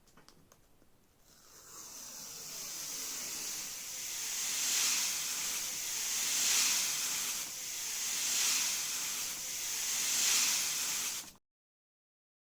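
A steady hiss of blown air, swelling and easing about every two seconds, then cutting off suddenly near the end.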